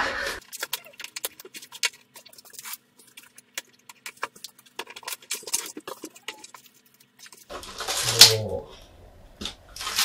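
Unboxing handling noise: a run of light clicks and rattles of plastic parts and packaging from a Shark cordless handheld vacuum cleaner, turning to denser rustling for the last couple of seconds.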